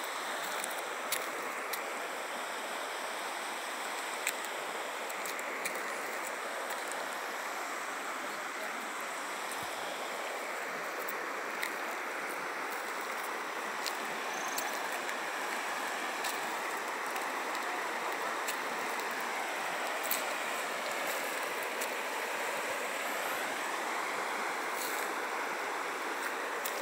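Muddy floodwater from a burst earthen dam running steadily through a washed-out channel and a breach in a dirt road, an even rushing sound with a few faint clicks.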